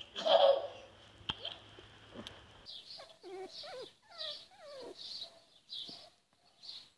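A short laugh at the start, then a run of short, high-pitched squeals and whines from a puppy and a kitten play-fighting, several a second with sliding pitch.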